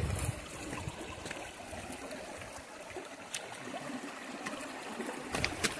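Shallow rocky stream trickling steadily, with a few faint clicks over it.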